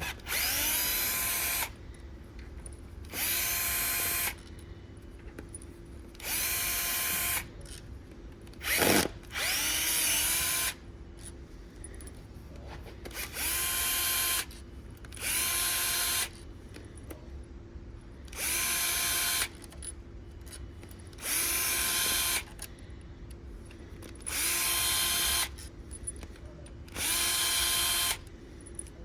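Electric drill driving out the camshaft bridge bolts of a 07K engine in about ten short bursts of a second or so each. Each burst starts with the motor spinning up in pitch and then running steady, with pauses between bolts.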